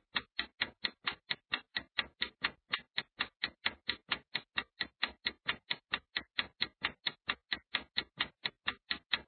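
Countdown-timer sound effect of a clock ticking: a steady run of short, sharp ticks, about four to five a second, marking the seconds left to answer.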